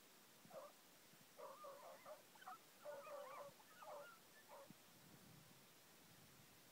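Pack of hounds giving tongue, the cry hounds make when working a scent. A string of short, faint, overlapping yelps and bays comes from about half a second in to near five seconds.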